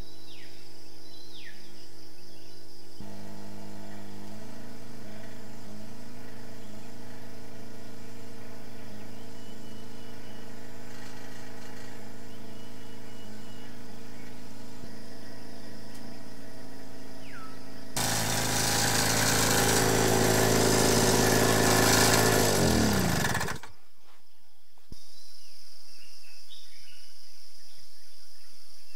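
Campsite generator engine running with a steady hum, while birds give short whistles that slide down in pitch. About eighteen seconds in the engine gets louder and rougher, then winds down in pitch and stops. A quieter bed of insects and bird chirps is left after it.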